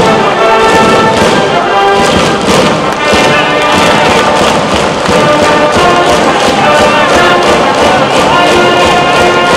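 High school brass band playing a baseball cheering tune in the stadium stands: held horn notes over a steady drum beat.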